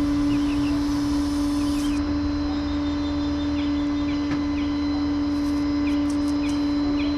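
A steady mechanical hum on one strong pitch, with faint short chirps recurring over it and a low rumble that grows slightly about two seconds in.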